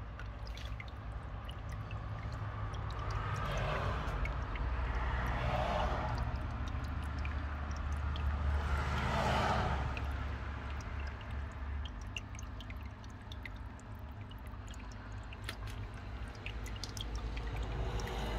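Small stream in a paludarium trickling and dripping, with many small drips and a steady low hum underneath; the water swells louder twice in the first half.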